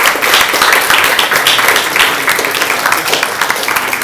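Small audience applauding, many hands clapping together at a steady, loud level.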